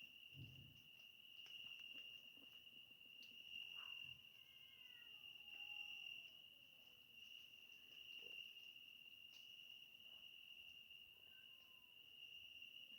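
Crickets chirring steadily and faintly in a single high, unbroken trill. A few seconds in, a faint, long, drawn-out call slides down in pitch, with a few soft ticks scattered through.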